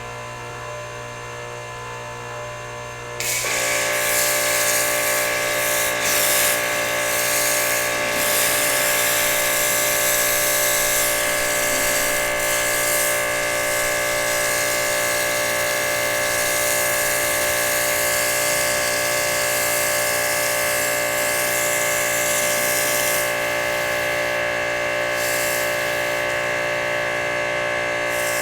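Pressure washer running, at first a steady hum, then about three seconds in it jumps to a much louder steady drone with a strong spray hiss as the trigger is pulled and the foam cannon sprays soap. This continues to the end.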